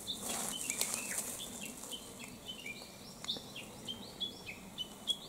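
Small birds chirping: a quick, continuous run of short high notes, many of them dropping in pitch, with a few faint sharp clicks among them.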